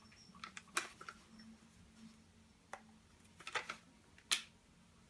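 Sharp metal clicks and taps from a Benelli Nova shotgun's receiver being handled as its trigger-group retaining pins are pushed out: a handful of separate clicks, the loudest near the end.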